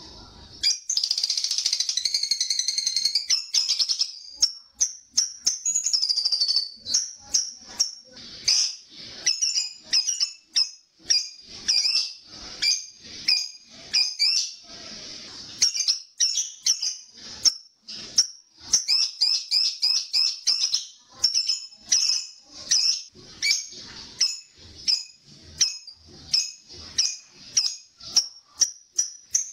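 Lovebird 'ngekek' chatter. A long unbroken run of shrill, rapid chattering in the first few seconds and again briefly about six seconds in, then short, sharp high-pitched calls in quick runs.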